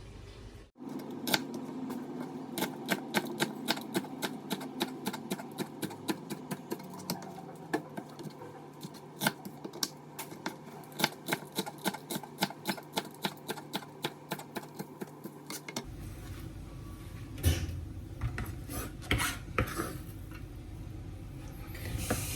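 Kitchen knife chopping vegetables on a cutting board: a long run of quick, even knocks, several a second. After a break, a few sparser, louder knocks follow near the end.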